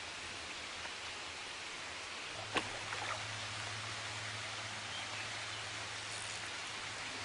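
Steady hiss of flowing river water, with one sharp click about two and a half seconds in and a few faint ticks after it.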